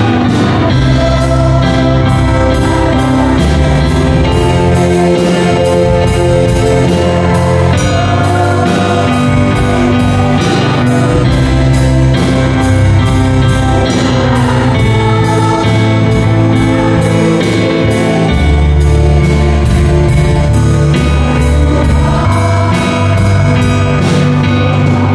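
Live praise band music: an electronic keyboard playing sustained chords over bass and a drum kit keeping a steady beat.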